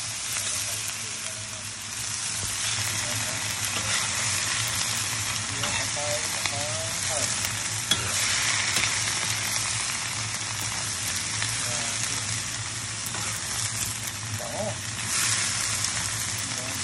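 Chicken gizzards, livers and hearts sizzling steadily in hot cooking oil in a pan, with a single sharp click about eight seconds in.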